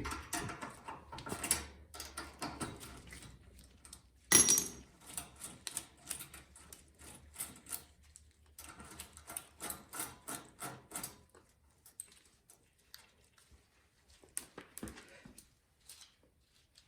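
Small metal parts and hand tools clicking and clinking as a snowblower engine is reassembled, with one louder knock about four seconds in and a quick run of clicks around the middle that thins out near the end.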